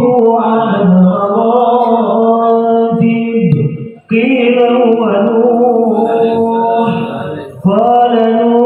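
Male voices chanting Arabic devotional praise (sholawat) in a drawn-out, melismatic melody, unaccompanied. There is a short break for breath about four seconds in.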